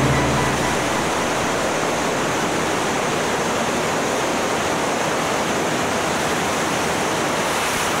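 Steady rushing wind noise on the microphone of a microlight in flight, even and without any engine tone. Background music ends within the first second.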